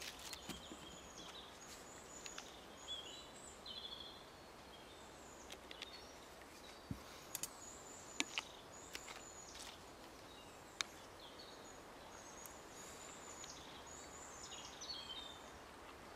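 Songbirds singing faintly in the background, the same short high phrase repeated again and again. Over it come a few sharp clicks and taps from a fork and bread being handled at a plastic plate, the loudest about eight and eleven seconds in.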